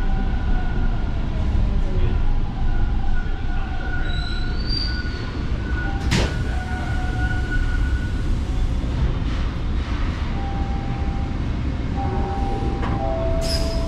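TTC Line 2 subway train running: a steady low rumble with thin high wheel-squeal tones drifting in and out, and a sharp click about six seconds in.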